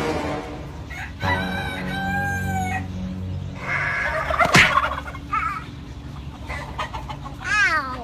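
Roosters crowing and clucking: a long crow a little over a second in, then shorter calls, and a falling call near the end. A sharp click about halfway through is the loudest sound.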